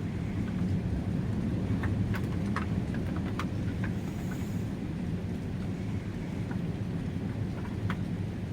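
Strong gusting wind rumbling steadily around an elevated box blind, heard from inside, with scattered light ticks against the blind.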